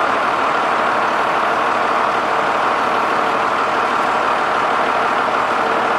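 Engine of a 2009 Taylor THC300S 30,000 lb forklift running steadily, with its hydraulics powering the rotating clamp attachment.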